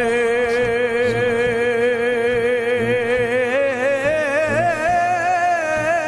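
Background music from a Punjabi Sufi devotional song: a singer holds one long wavering note that drifts slowly up in pitch.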